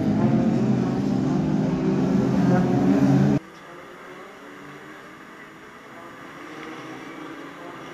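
BriSCA F2 stock car engines running hard as cars race past close by. About three and a half seconds in, the sound cuts abruptly to a much quieter, more distant engine drone from the pack on the far side of the oval.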